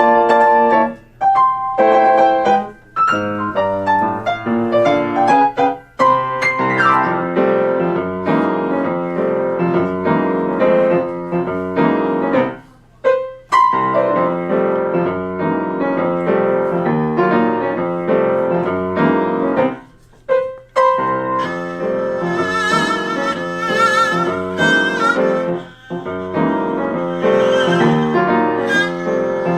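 Piano playing a classical piece, with a violin coming in over it with a vibrato melody about three quarters of the way through.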